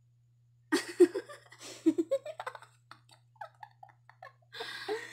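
Two women laughing and giggling in short bursts, starting about a second in.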